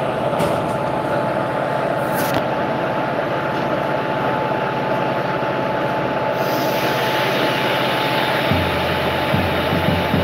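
An Indian Railways locomotive rolling slowly past at close range: a steady running rumble with a thin held whine, and a deeper hum coming in near the end.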